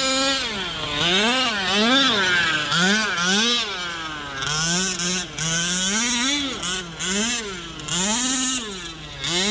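Small two-stroke gasoline engine of a Losi 5IVE-T 1/5-scale RC truck revving up and falling back over and over, rising and falling in pitch every second or so under short bursts of throttle. The engine is still being broken in, so it is kept off full throttle.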